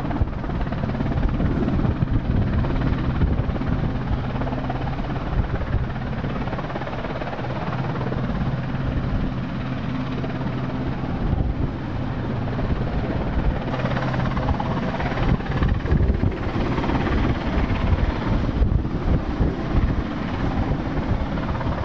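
Westland Sea King helicopter hovering low, its rotors and twin turbine engines running with a steady low drone. It grows louder and brighter in the last several seconds as the helicopter comes closer.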